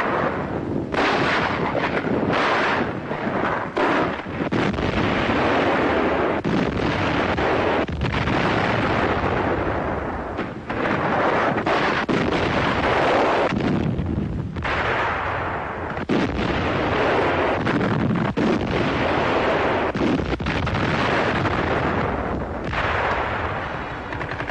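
Battle sounds of gunfire and artillery explosions: a dense, continuous noise broken by many sharp shots and blasts.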